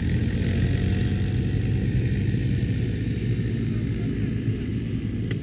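Quad bike engine running steadily while riding.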